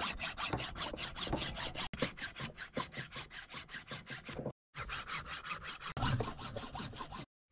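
A hand tool scraping back and forth on beef legs in rapid, even strokes, about six a second. The sound breaks off twice in abrupt gaps.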